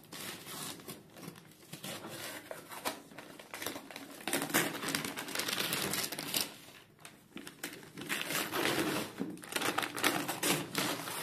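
Gift wrapping paper being torn off a cardboard box by hand: a run of rips and crinkling rustles, busiest about four to six seconds in and again over the last three seconds.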